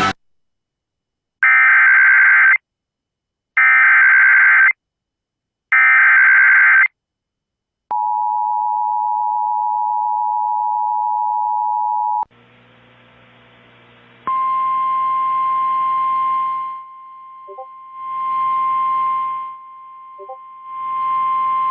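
Emergency Alert System sequence heralding a severe thunderstorm warning. First come three loud bursts of SAME header data, each about a second long and warbling. Then the steady two-tone attention signal sounds for about four seconds, followed a little later by the steady 1050 Hz NOAA Weather Radio alert tone under hissing static that swells and drops back twice.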